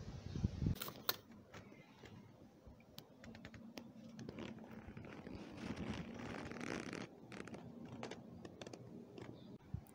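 Faint handling noise: scattered small clicks, a couple of sharper ones about a second in, and soft scraping and rustling.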